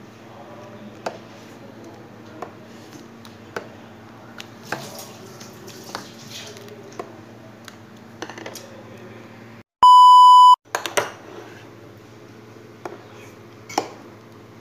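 A spoon clinks against a glass bowl about once a second as a creamy jelly dessert is stirred, over a steady low hum. About two-thirds of the way in comes a loud electronic beep, one pure tone lasting under a second, which is the loudest sound.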